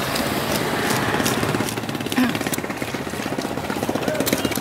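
Small motorcycle engine idling with a rapid, steady putter, and a brief thump a little over two seconds in.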